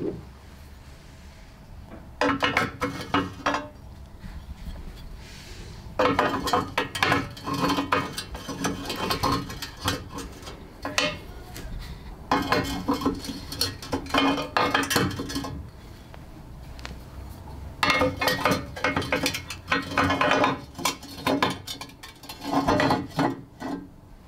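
Glazed ceramic pieces grinding and clinking against each other as a yellow ceramic part is twisted and worked into the neck of a ceramic vessel. The sound comes in several bursts of rapid rattling, each lasting a few seconds, with short pauses between.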